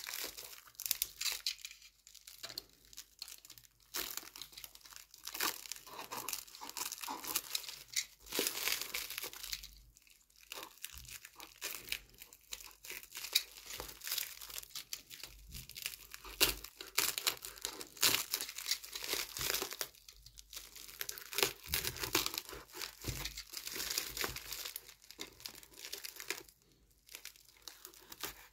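Black plastic wrap and packing tape crinkling and tearing as they are pulled off a parcel and slit with a utility knife, in irregular bursts with short pauses.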